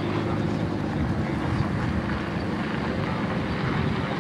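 A vehicle engine running steadily, with wind noise on the camcorder microphone.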